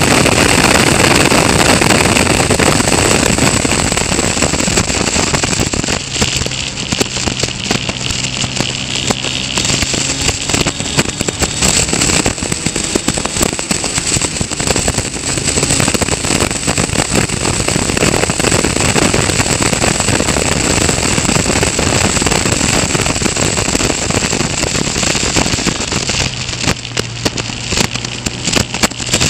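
Onboard sound of a Caterham Seven race car at speed: its four-cylinder engine running under a loud rush of wind buffeting the camera microphone, with crackling throughout. A steadier engine note comes through more clearly about six to ten seconds in and again near the end.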